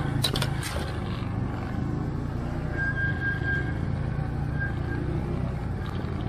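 ATV engine running steadily with a low rumble, and a few sharp clicks in the first second.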